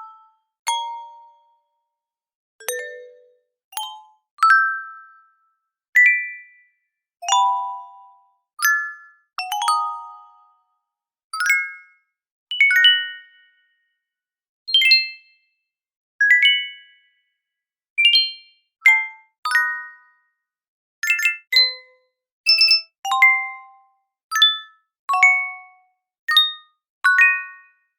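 A run of user-interface notification chimes and pings, about two dozen, one after another with short silences between. Each is a bright bell-like strike of a few notes that rings out within about a second, and each is pitched differently from the one before. A few come as quick two-strike pairs.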